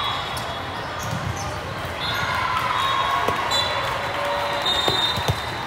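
Volleyballs bouncing and thudding on the sport-court floor, a few sharp hits in the second half, over the steady murmur of players and spectators in a large echoing hall.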